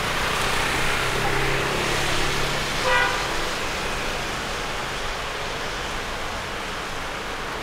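Steady noise of heavy rain and street traffic, with a short car horn toot about three seconds in.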